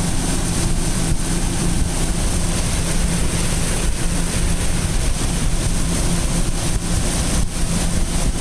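Mercury 225 outboard motor running at speed: a steady, even drone, with wind buffeting the microphone and the wake rushing.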